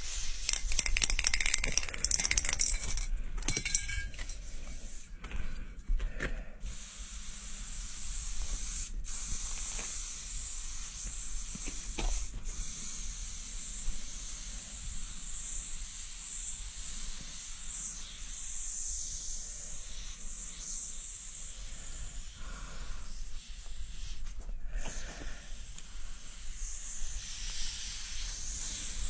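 Aerosol spray paint can hissing as the paint is sprayed in long strokes, broken by a few short pauses between strokes.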